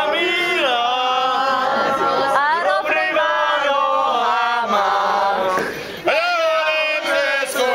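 A group of mostly male voices singing a song together at the table, with a short break between lines about six seconds in.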